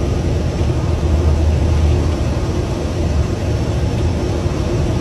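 Jet airliner engines running with a steady low rumble and a faint constant hum.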